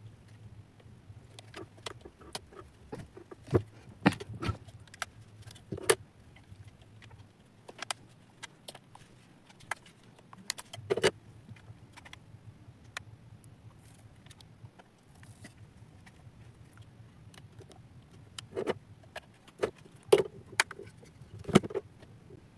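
Scattered sharp clicks and light knocks of a screwdriver and small screws against a plastic Bluetooth speaker case as its four screws are taken out and the case is opened.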